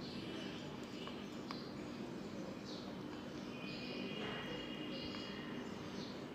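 Faint background: a steady low hum with faint bird chirps now and then, and two light clicks about a second in.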